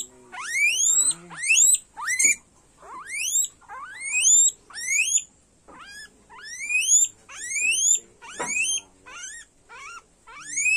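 Guinea pig squealing over and over while restrained for an injection, each call a sharp rising whistle, more than one a second.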